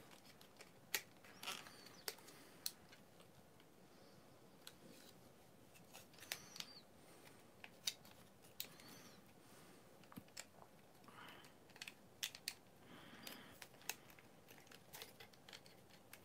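Irregular sharp plastic clicks and snaps, with soft handling rustles, as the hinged joints and panels of a Hasbro F-14 Tomcat Transformers figure are worked by hand.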